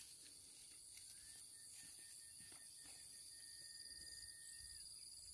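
Faint, steady high-pitched chirring of insects in the grass and shrubs. A thin, even tone is held from about a second in until near the end, where it drops away.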